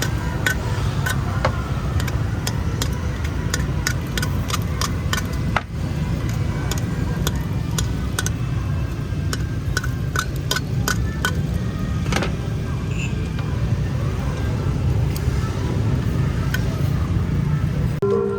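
Street-stall ambience: a steady low rumble with many sharp clicks and taps scattered through it.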